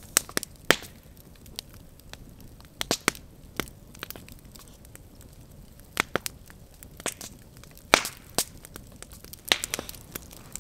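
Wood campfire crackling, with irregular sharp pops scattered through; the loudest pop comes about eight seconds in.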